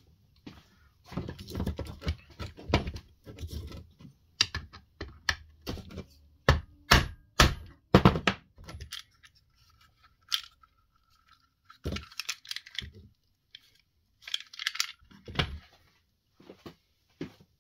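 Small hard parts of a Spinlock XA rope clutch being handled and fitted: irregular clicks, knocks and scraping of plastic and metal pieces, with a quick run of sharp clicks about seven to eight seconds in.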